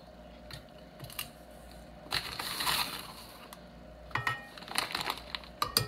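Measuring cup scooping granulated sugar in a paper sugar bag: a grainy crunching rustle of sugar about two seconds in, then a run of light clinks with a brief ring near the end.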